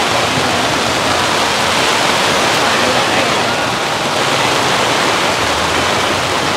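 Heavy rain pouring onto a tarp canopy overhead, a loud steady hiss, with faint crowd chatter underneath.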